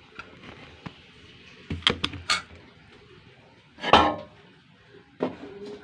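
A few knocks and clatters in a small room, a cluster about two seconds in and the loudest single knock about four seconds in.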